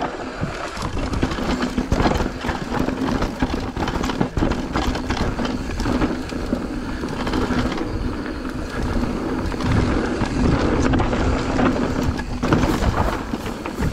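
Mountain bike riding down a rough trail: rushing tyre noise and rattling over the ground, with a steady hum that stops about twelve seconds in.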